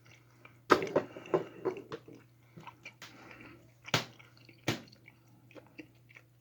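A person chewing a big mouthful of dense gummy bear: irregular wet, sticky mouth smacks and clicks, with louder ones near the start, about four seconds in and just before five seconds.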